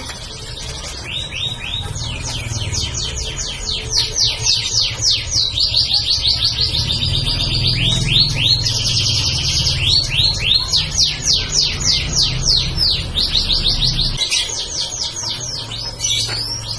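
Domestic canary singing continuously: fast trills and runs of repeated sweeping notes that switch to a new phrase every second or two. A steady low hum runs underneath and stops near the end.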